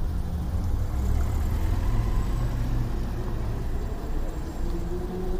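Road traffic: a deep, steady rumble of idling and passing vehicles that swells about a second in and eases after three seconds, with a faint hum slowly rising in pitch near the end.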